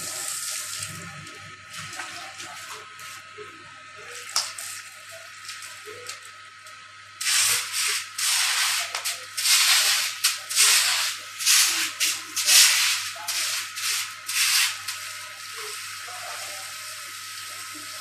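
Garden hose spraying water onto a concrete floor. A softer hiss at first, then loud, irregular spattering bursts from about seven seconds in until about fifteen seconds.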